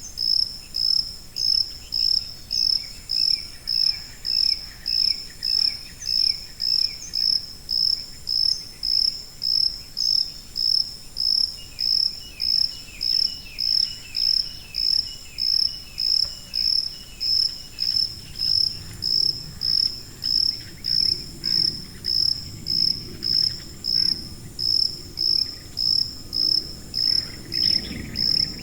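Cricket chirping at a high pitch in a steady, even rhythm of about three chirps every two seconds. At times fainter insects trill lower in pitch underneath.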